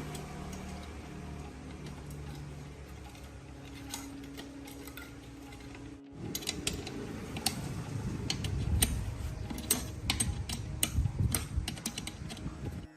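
Mechanical handling sounds: a steady low hum for about six seconds, then after an abrupt cut, many irregular sharp clicks and taps over low knocks, like small hard parts being handled and tapped.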